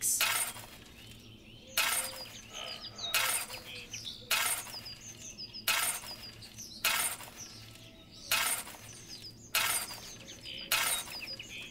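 Miniature shovel scraping and scooping through dry sand and cement powder: about nine short gritty scrapes, one every second or so, as the dry mix is stirred together. Birds chirp faintly in the background.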